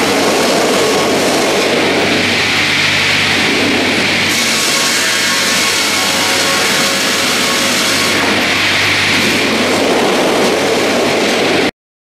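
Double-blade circular sawmill running, its two saw blades cutting a spruce log as the carriages feed it past the cutting head: a steady machine hum under a loud sawing hiss that dips for a few seconds midway and then comes back. The sound cuts off suddenly just before the end.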